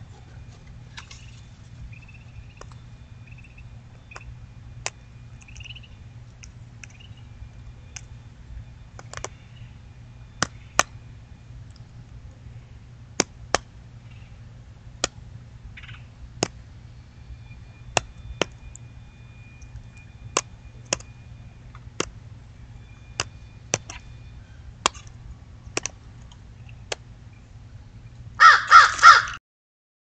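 Crow cawing three times in quick succession near the end, loud and close. Before that, scattered sharp clicks and faint distant birdsong over a low steady hum.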